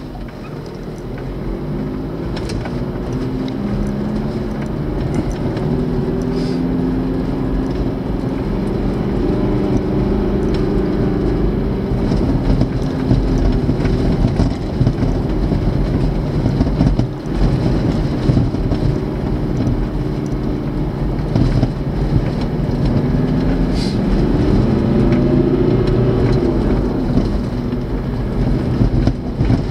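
Vehicle driving on a rough gravel and dirt road, heard from inside the cabin: a steady low rumble of engine and tyres, the engine note rising and falling with speed, with occasional knocks and rattles from bumps.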